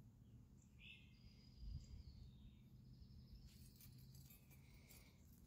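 Near silence: faint outdoor background with a few faint high chirps, about a second in and again later on.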